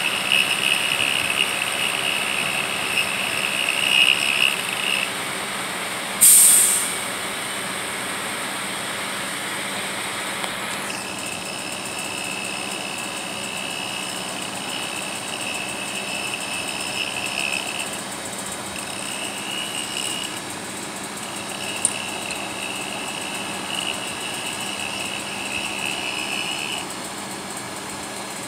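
A track worker's cutting tool working a steel rail and throwing sparks, with a steady high hissing whine. The whine stops about five seconds in, starts again near eleven seconds, and breaks off briefly a few times later. About six seconds in there is a short, very loud hissing blast.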